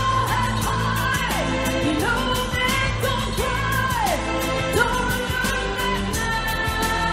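Pop song with a woman singing live: long held notes that slide down in pitch, over a steady percussion beat and a sustained low backing.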